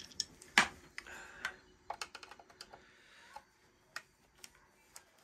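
Small clicks and ticks of a screwdriver working screws in the Eddi solar diverter's sheet-metal case as they are loosened: one sharp click about half a second in, then a run of light, irregular ticks.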